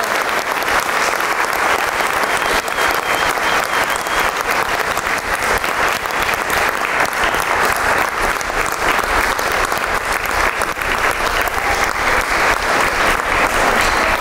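A crowd applauding, many hands clapping at a steady level.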